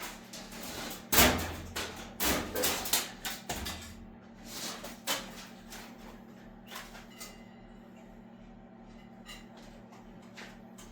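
Handling tools and car parts during wiring work: a quick run of knocks and clatters in the first few seconds, the loudest about a second in, then only scattered light ticks over a steady low hum.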